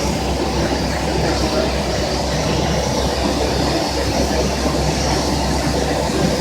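Plastic conduit pipe extrusion line running: a steady, dense mechanical noise with a low hum underneath, unchanging throughout.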